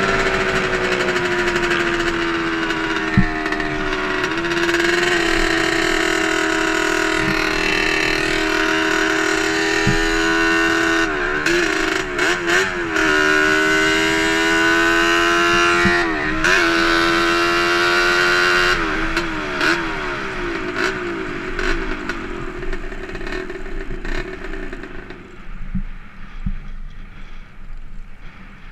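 Yamaha Banshee ATV's twin-cylinder two-stroke engine running hard at steady high revs, dipping briefly in pitch several times as the throttle is eased. Near the end the engine sound falls away as the quad slows.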